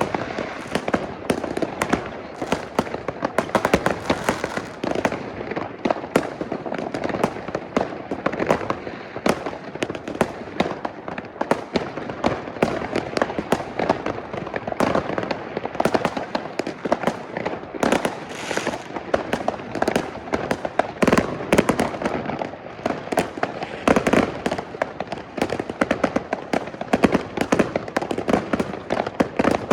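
Many consumer fireworks and firecrackers going off at once all around, a dense, continuous barrage of cracks and bangs with no let-up.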